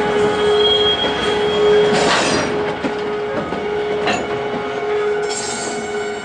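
Loaded cement tank wagons rolling slowly past, their wheels squealing on the rail with one steady tone. A shorter, higher squeal joins about a second in, and a harsh screech comes about two seconds in. Brief rasps follow near four and five seconds.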